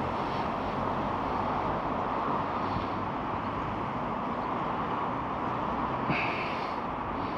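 Steady outdoor background noise, with one short higher-pitched sound about six seconds in.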